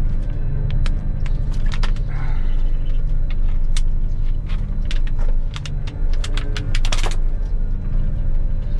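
Claas Lexion 670 combine harvester's engine running steadily, heard from the driver's cab, with frequent sharp clicks and rattles over it and a quick run of clicks about seven seconds in.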